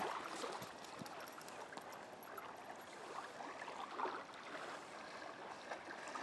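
Small waves washing onto a sandy shore, a steady soft rush of water.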